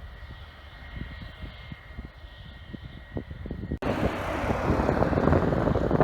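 Jet airliner engines at an airport, a low rumble with a faint steady whine, with wind gusting on the microphone. About four seconds in, the sound jumps abruptly to a much louder rush of engine and wind noise.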